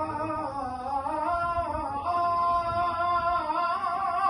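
A man's solo voice chanting an unaccompanied Islamic ibtihal, holding one long melismatic note that winds slowly up and down in pitch and falls away near the end.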